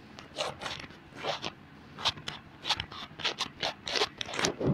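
A spoon scraping against a cooking vessel in a run of short, uneven strokes, about two or three a second, as ground coconut-tomato paste is scraped into a pressure cooker.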